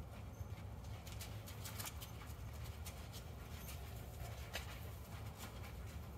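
Faint, distant hoofbeats of a ridden horse on sand arena footing, over a steady low rumble, with scattered light clicks.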